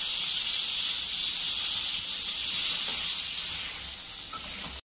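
Brinjal halves sizzling in hot oil in a kadai: a steady frying hiss that eases a little near the end and then cuts off suddenly.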